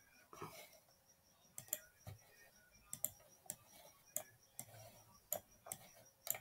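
Faint clicks of a computer mouse, about a dozen at uneven intervals, some in quick press-and-release pairs.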